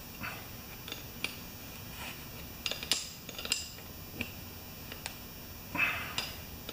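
Scattered small metal clicks and clinks of a wrench working on a pressure washer hose adapter fitting, most of them around the middle, with a short scrape near the end.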